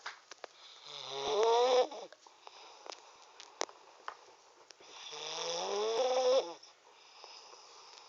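Snoring: two loud snores, the first about a second in and the second about five seconds in, each swelling and rising in pitch before stopping abruptly.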